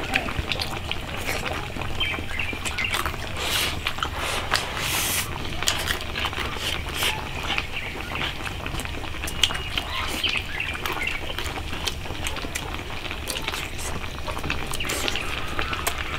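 Scattered clicks and clatter of tableware during a meal, with birds calling in the background.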